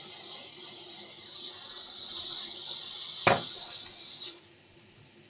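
Hot air rework station blowing a steady hiss. A sharp click comes about three seconds in, and the airflow cuts off suddenly about a second later.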